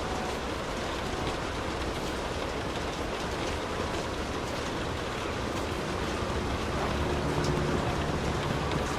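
Light rain falling on a car's roof and windows, heard from inside the car: a steady patter with scattered drop ticks. A low rumble builds in the second half, like a vehicle passing.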